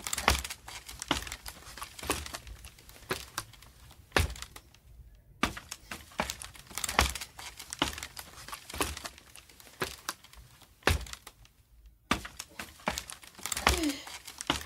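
Sound effects of someone climbing a ladder: a string of irregular knocks, cracks and creaks, one or two a second, with short pauses about four and eleven seconds in.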